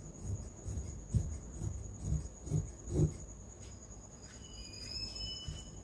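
A cricket trilling steadily at a high pitch, with soft dull knocks and rustles from handling cloth through the first three seconds or so. The strongest knock comes about three seconds in.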